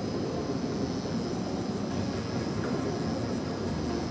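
Pen-style tattoo machine running steadily with a buzzing hum as the needle works dots into practice skin.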